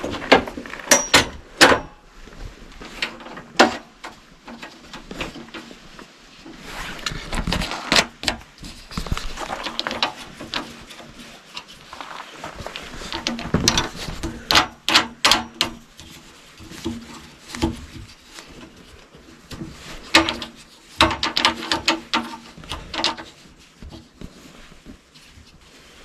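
Scattered knocks, clicks and clatter of objects and tools being handled and set down on hard surfaces, with a few brief squeaks, as clutter is cleared around a push lawnmower.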